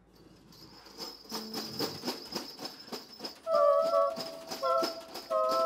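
Quiet passage of live band music: soft, irregular ticking percussion over a faint, steady high tone. About halfway in, two notes in close harmony come in and are held, breaking off briefly twice before sounding again.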